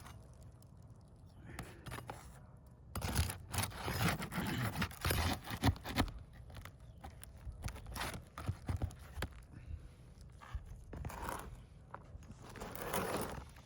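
Asphalt roof shingles being scraped and torn loose during a repair attempt, in irregular bursts of scraping with sharp clicks, heaviest a few seconds in and again near the end.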